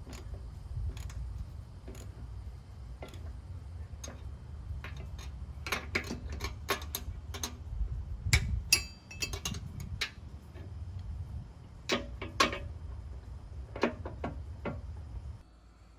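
Ratchet wrench clicking in irregular runs while bolts are tightened on a mower deck spindle, with a few louder metal knocks and a steady low rumble underneath. The sound cuts off just before the end.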